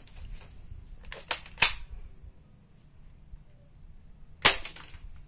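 M788 toy shotgun firing glass marbles: two sharp shots about three seconds apart, the first preceded by a couple of lighter clicks.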